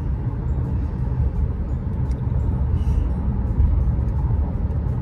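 Road noise inside a moving car's cabin: a steady low rumble of tyres and engine.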